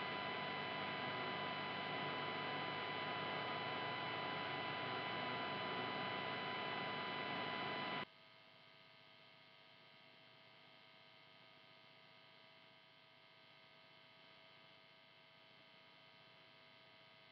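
Electric guitar noise through the amp chain: a loud, steady mains hum and buzz from an Ibanez RG470AHM with poorly shielded electronics. About eight seconds in it cuts suddenly to a much quieter hum, the noise left once the electronics cavity is shielded with copper tape.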